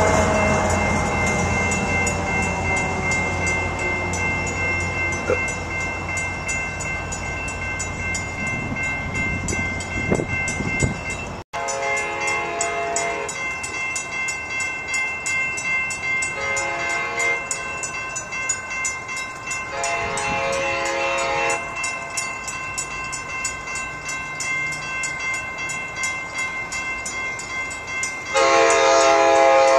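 Approaching Amtrak train's multi-chime Nathan K5LA air horn sounding several separate blasts from a distance, the loudest starting near the end as the train comes closer. Before that, a fading sound with falling pitch.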